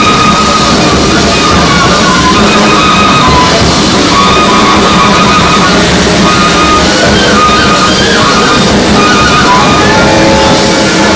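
Loud, dense free-jazz ensemble playing: saxophone holding high sustained tones over busy drums, with a brass horn in the mix.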